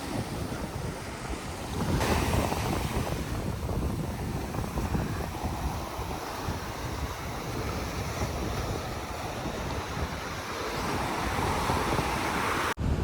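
Ocean surf washing onto a rocky beach, with wind buffeting the microphone. The wash swells about two seconds in and again near the end.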